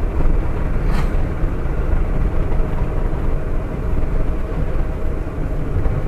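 Steady engine and tyre noise inside the cabin of a Maruti Suzuki Alto K10 with its three-cylinder petrol engine, driving at moderate speed, with a short click about a second in.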